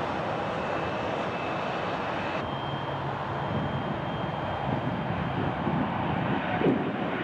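Jet airliner engines running at taxi, then, after a cut about two and a half seconds in, a twin-engine Boeing 777 freighter's jet engines at takeoff thrust as it lifts off, with a steady high whine over the engine noise.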